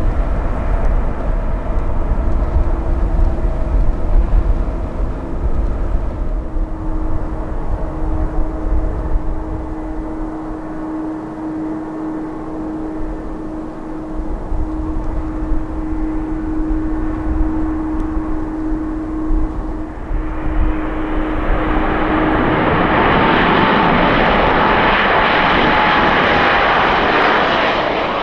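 Jet airliner engines: a steady hum with a low rumble, then a much louder rushing noise that builds about two-thirds of the way in and holds near the end, carrying a whine that slides slowly down in pitch as the aircraft passes close.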